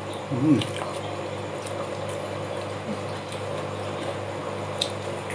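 A steady low hum of room background, with a short pitched vocal sound from a person, like a brief 'hmm', about half a second in, and a light click near the end.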